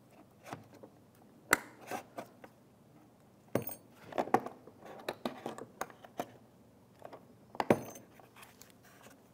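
Bumper retaining clips being pried out of the foam absorber with a panel tool: scattered light clicks and scrapes of the tool and clips, with a few sharper snaps spread through.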